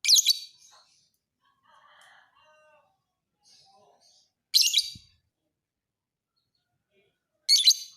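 Lovebird singing in three short, high-pitched chattering bursts: one at the start, one about halfway through and one near the end, with faint chirps in between. The short bursts are the fighter style of lovebird song.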